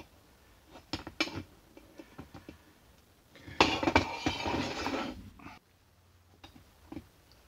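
Cast-iron lathe apron parts clinking against a steel table, with sharp knocks near the start and about a second in. About three and a half seconds in, a heavier metal scrape lasting about a second and a half comes as the apron housing is moved and turned over, followed by a few light ticks.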